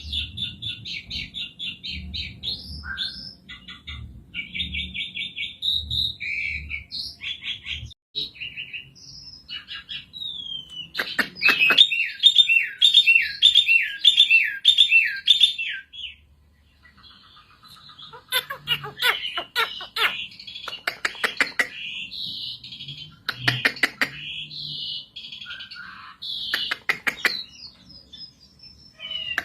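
Asian pied starling singing a long, varied song. It opens with rapid chattering notes, then gives a loud run of repeated looping whistles about a third of the way in. After a short pause it switches to sharp clicking rattles mixed with further chatter.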